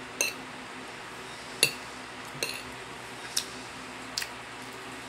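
Spoon clinking against a dish: five sharp clinks about a second apart, the first three ringing briefly.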